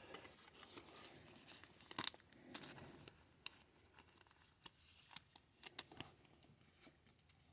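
Faint, scattered clicks and soft rustles of trading cards being handled: the sounds of going through a pack of cards.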